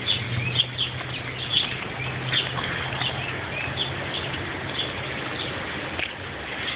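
Small birds chirping in quick short calls, one after another, over a steady low hum and a noisy background.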